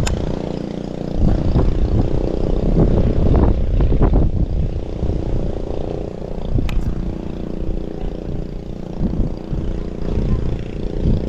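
Wind rumbling on the microphone, with a steady low hum underneath.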